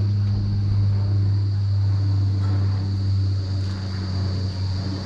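Motorcycle engine running at a steady, even pitch, with a low hum and some wind and road noise.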